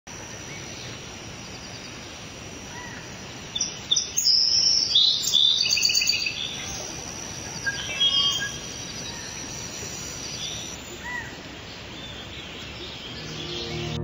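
Wild birds calling and singing over a steady outdoor background hiss. The loudest stretch, rapid repeated high notes, comes about four to six seconds in, with a shorter burst of calls around eight seconds.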